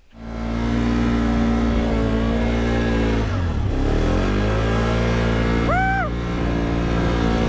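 ATV engine running under way, its revs dipping about halfway and climbing back. A short whooping shout about six seconds in.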